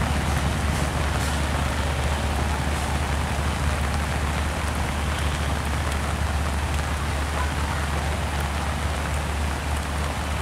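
Heavy rain pouring down onto the ground and tracks, a steady dense hiss, with a steady low rumble underneath.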